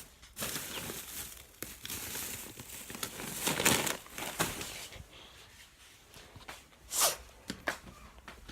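Rustling and handling noises as things are moved about in a search, with scattered clicks, a louder rustle about three and a half seconds in and a short sharp noise about seven seconds in.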